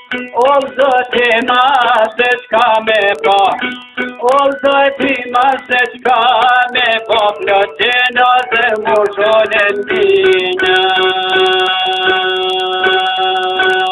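Albanian folk song: a man sings a wavering, ornamented melody over a plucked string instrument. About ten seconds in the voice stops and the plucked instrument plays on alone with steady held notes under quick, even plucking.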